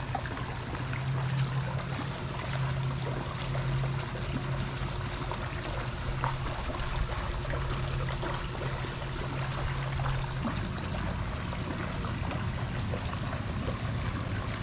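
Steady trickle and splash of water running into a swimming pool, with a low hum that cuts off about ten seconds in.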